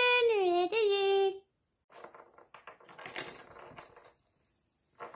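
A high-pitched voice singing a held, wavering tune that stops about a second and a half in. Then soft clicks and rustles of hands handling craft materials on a table.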